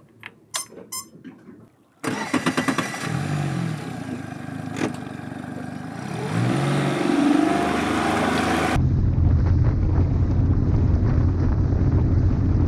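Honda BF40E four-stroke outboard motor starting about two seconds in and revving up and down twice, then, after a cut, running steadily at a low, even pitch.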